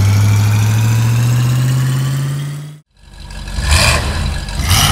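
Cartoon monster-truck engine sound effect: a steady engine note slowly rising in pitch, fading out under three seconds in. After a brief silence, engines idle with short bursts of revving about once a second.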